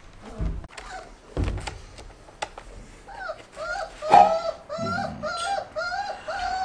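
Two dull thumps, then a four-week-old German wirehaired pointer puppy whining in a steady string of short rising-and-falling cries, about two to three a second.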